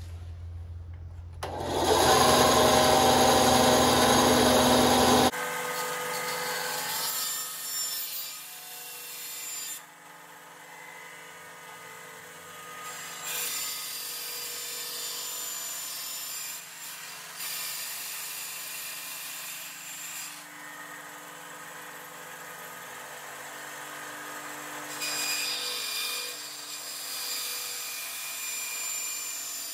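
Band saw running and cutting the edge of a knife-sheath blank: a loud, harsh cut for a few seconds near the start, then a steadier machine hum with several shorter passes of the blade through the sheet.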